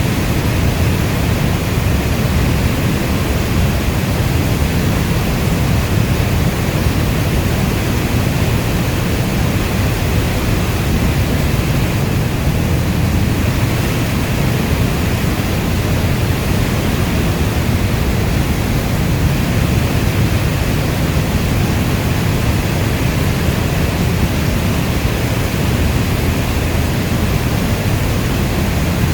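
Steady rainstorm ambience: an even, unbroken rushing hiss, heaviest in the deep low end.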